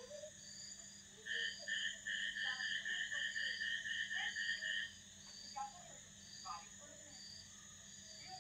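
Rhythmic animal calls in the background: a quick series of short repeated calls, about three a second, starts about a second in and stops about five seconds in, over a higher call that keeps pulsing about once a second.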